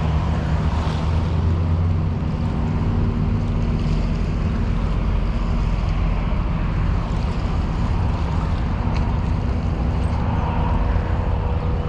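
Steady low engine rumble mixed with wind and water noise; a few higher steady tones join near the end.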